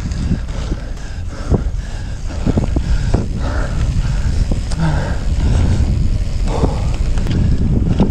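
Wind buffeting the microphone of a bicycle-mounted camera at riding speed, over the rumble of tyres on a gravel road, with scattered sharp knocks and rattles from the bike on the rough surface.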